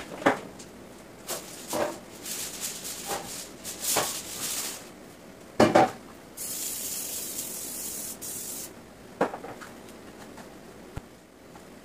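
A metal baking pan knocking and clattering on the counter while kale rustles, with a steady hiss from an aerosol cooking-oil spray can for about two seconds just past the middle.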